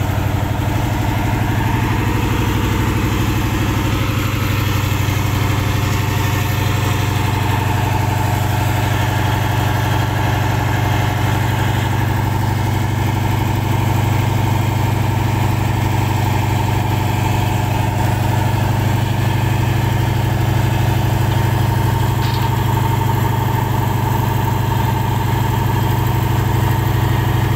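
Sand-suction dredge barge's engine running steadily as it drives the sand pump: a constant low drone that holds one pitch throughout.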